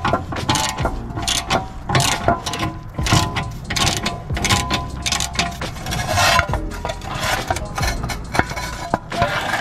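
Hand ratchet clicking in quick repeated strokes while backing out a bolt, over background music.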